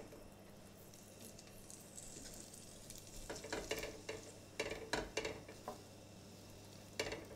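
Diced chorizo, butter and olive oil sizzling quietly in a stainless steel roasting tray on the hob, the sizzle building as the fat heats. From about three seconds in, a wooden spoon stirs through it in short scraping strokes against the pan.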